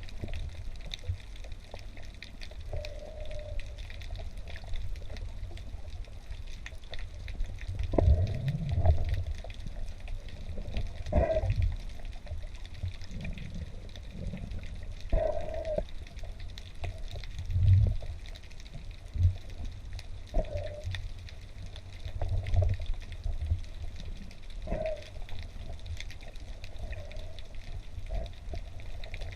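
Underwater sound picked up by a camera in a waterproof housing: a steady, muffled water rumble with irregular dull knocks and short low hums.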